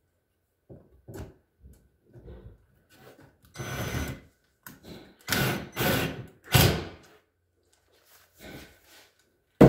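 Small cordless driver run in several short bursts, driving screws through a metal undermount drawer slide into a cabinet face frame. A sharp knock comes near the end and is the loudest sound.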